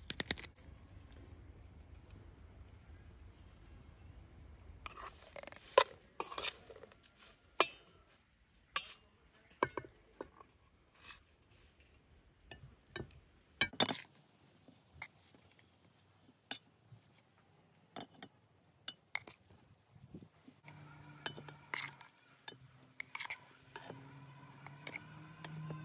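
Metal spoon clinking and scraping against an aluminium pot and porcelain plates as fried liver and potatoes are served, in many short separate clinks. A faint steady hum comes in over the last few seconds.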